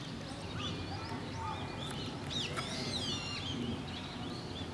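Small birds chirping, with many short high calls that slide up and down in pitch, over a steady low background noise.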